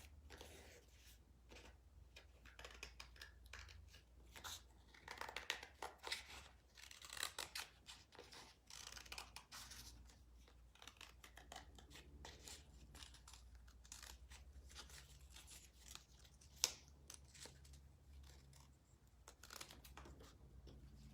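Scissors snipping through cardstock in short, irregular cuts, with paper rustling as the piece is turned; one sharper click about two-thirds of the way through.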